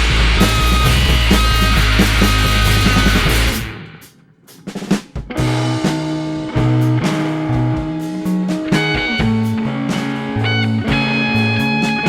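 Rock band playing live: a loud, dense passage of guitar, bass and drums cuts off about three and a half seconds in. After a short quiet gap the band comes back in with a sparser groove of a stepping bass line, drum hits and guitar notes.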